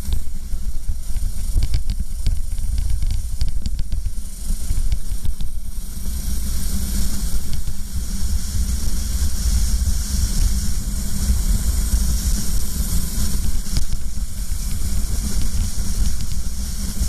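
Wind buffeting and hissing across an onboard camera's microphone on a racing kart at speed, with the kart running underneath. A scatter of short knocks comes in the first several seconds.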